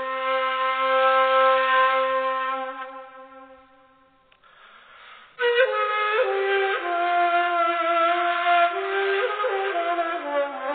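Background instrumental music: held notes fade out about four seconds in, and after a short gap a new melodic phrase starts suddenly and carries on.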